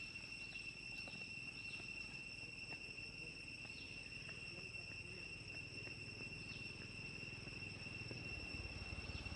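Steady high-pitched trilling of insects in the trees, one unbroken tone, with faint short chirps and a few light clicks over it.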